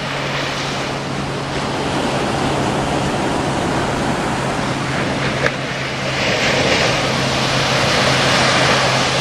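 Ocean surf breaking and washing up the beach, a steady rushing hiss that swells louder from about six seconds in.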